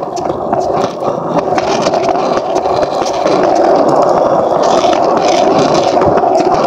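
Skateboard wheels rolling over pavement, a steady loud rumble that grows louder about three seconds in, with scattered small clicks.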